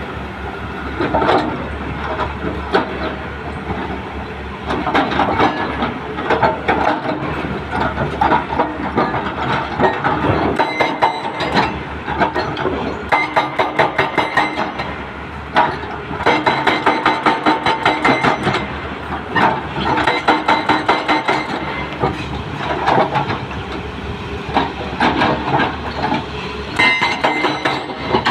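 Hyundai 210 excavator's hydraulic breaker hammering in several bursts of rapid, evenly spaced blows, over the steady run of the excavator's engine.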